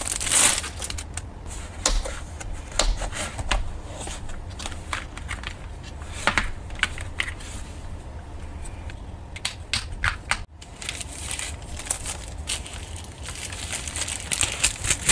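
Crinkling clear plastic packaging and scattered sharp clicks and taps from a clear plastic compartment palette box being handled. The crinkling is densest at the very start and again near the end.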